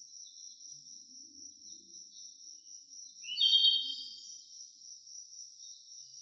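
Steady high-pitched insect trill, crickets or similar, with a louder, short, slightly rising chirp about three and a half seconds in.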